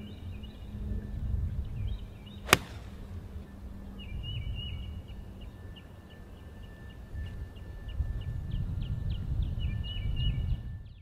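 An 8-iron striking a golf ball: one sharp click about two and a half seconds in, over a low outdoor rumble and birds chirping.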